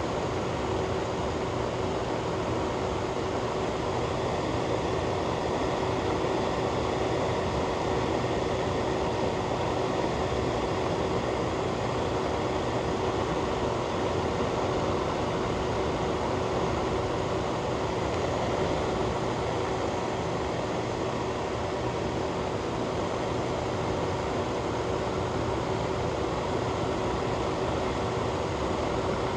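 Fan running steadily: an even, constant rush of air with a faint steady hum under it.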